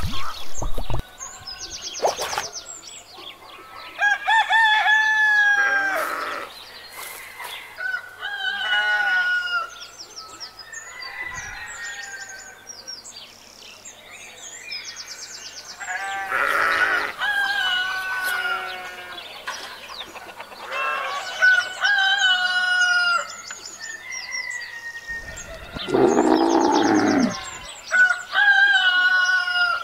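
A string of about eight animal calls one after another, several of them crowing calls that fall in pitch at the end, with a deeper, louder call near the end.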